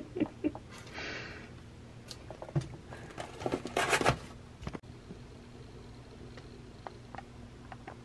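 Rustling, clicks and taps from a plastic takeaway food container and other things being handled on a table, with one sharper knock a little before the five-second mark. A few small ticks follow over a faint low hum.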